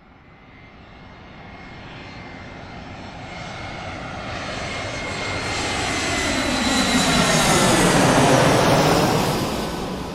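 Airplane flying past: engine noise swells steadily for about eight seconds to a peak, then begins to fade near the end. A faint steady high whine runs under it.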